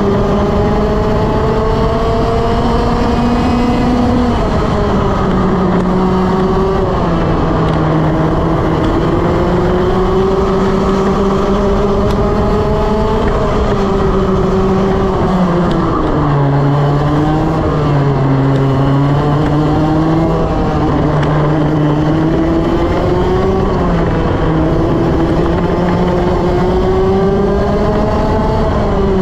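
Two-stroke TaG racing kart engine at full race pace, its pitch climbing slowly along the straights and dropping sharply as the kart slows for corners, about halfway through and again at the end.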